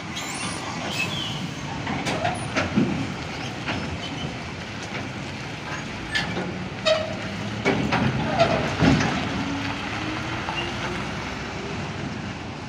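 Container truck with a loaded 20-foot container on a skeletal trailer driving off: diesel engine running, with repeated clanks and rattles from the trailer and container as it rolls, several louder knocks about two-thirds of the way through.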